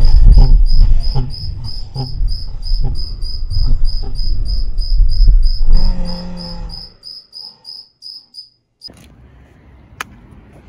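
Edited, synthetic-sounding soundtrack: a high-pitched electronic chirp pulsing about three times a second over a loud low rumble. It stops about nine seconds in, leaving faint outdoor hiss with a single click.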